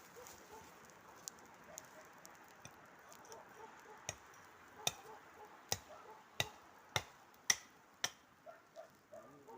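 A run of about seven sharp wooden knocks at a steady pace, a little faster than one a second, growing louder toward the end, with a few lighter clicks before them. This is wood being struck or broken by hand.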